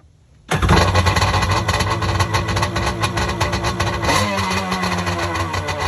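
An engine starting abruptly and running loudly with a rapid, even pulse; a steady tone joins about four seconds in.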